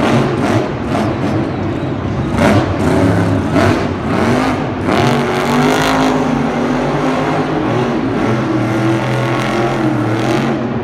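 Engine revving, its pitch rising and falling continuously, with a few sharp knocks in the first half.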